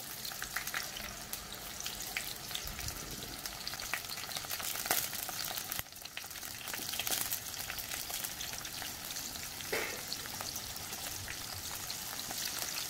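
Hot oil sizzling steadily in a steel kadhai with a mustard-seed, bay-leaf and curry-leaf tempering, as freshly grated ginger and garlic drop into it, with many small scattered crackles.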